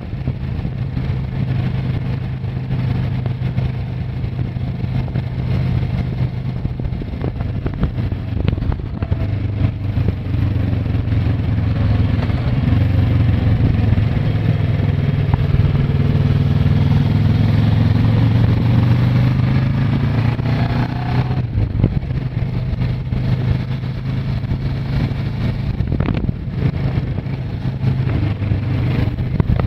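Kawasaki ER-6n's 650 cc parallel-twin engine running under way, heard from on the bike. It pulls louder through the middle, then eases off sharply about two-thirds of the way through before picking up again.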